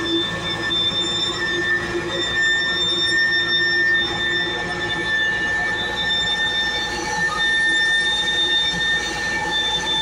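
Steady high-pitched whine from an Airbus A320 at close range, over the low engine noise of the towing tractor pushing it back.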